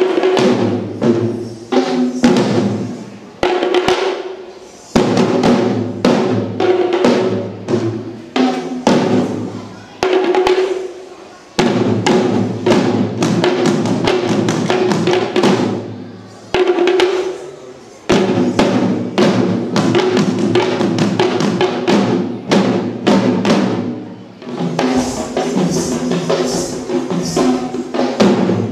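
A troupe of Sri Lankan traditional drums (bera) played together, with fast, loud interlocking strokes. The drumming runs in phrases, with a brief break about every six or seven seconds.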